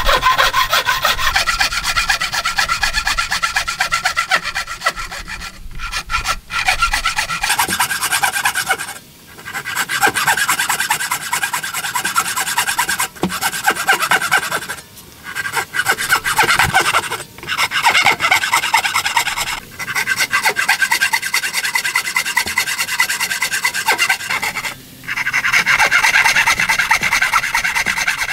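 Thin-bladed hand saw cutting into a wooden board, rapid back-and-forth strokes rasping through the wood in several long runs with short pauses between them. It is cutting the kerfs along marked lines for a hand-cut wood joint.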